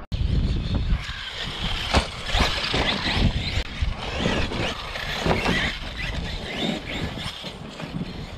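Large 6S brushless RC truck driving over dirt and mulch: a high motor whine with the tyres and chassis clattering on the ground, and a sharp knock about two seconds in.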